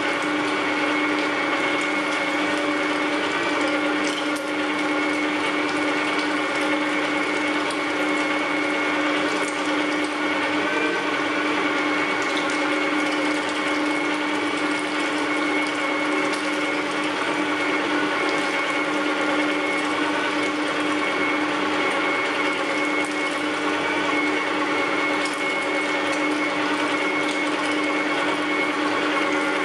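Electric meat grinder running steadily while grinding meat, its motor giving a constant hum with a higher whine over it and faint scattered clicks as the auger forces the meat through the cutting plate.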